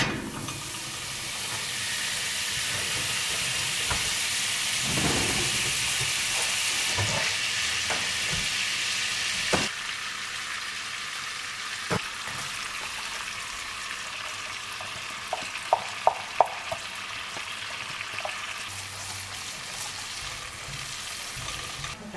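Butter sizzling as it melts and fries in a skillet over a gas flame, a steady hiss that drops a little about halfway through. A few sharp clicks break in near the middle, with a small cluster of light clicks a few seconds later.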